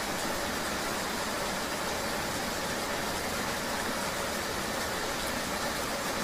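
Steady rain ambience: an even, unbroken hiss with no distinct events.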